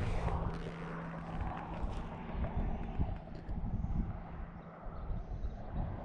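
Distant engine drone, steady for about three seconds and then fading, with wind rumbling on the microphone.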